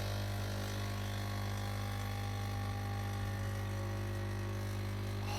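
Capsule coffee machine brewing a pod, its pump buzzing with a steady low hum.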